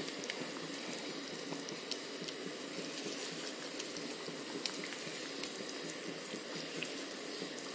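Spicy sprouted-bean curry (usal) simmering in a wide pan: a steady bubbling with scattered small pops.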